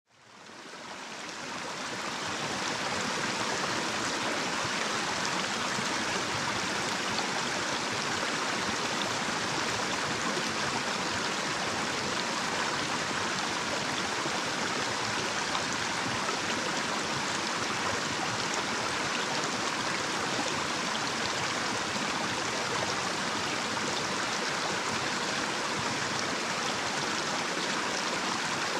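Small, shallow natural stream spilling over a little cascade: a steady rush of running water that fades in over the first two seconds.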